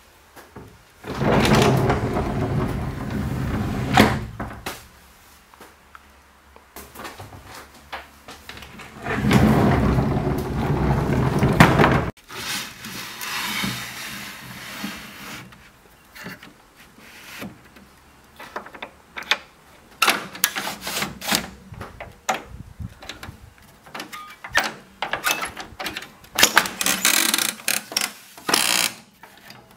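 A heavy sliding panel in an old CityRail U-set railway carriage rumbles along its runners and stops with a knock, twice, each run lasting about three seconds. It is followed by a long run of light clacks and knocks as the wooden louvred shutters are worked.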